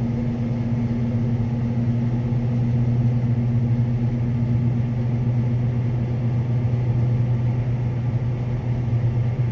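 Claas Lexion 650 combine harvester running with a steady low drone while it unloads grain through its unloading auger.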